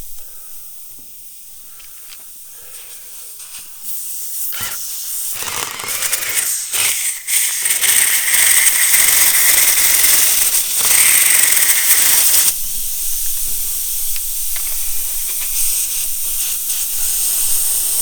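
Air hissing steadily out of a punctured tyre, building up about four seconds in and loudest midway before dropping back.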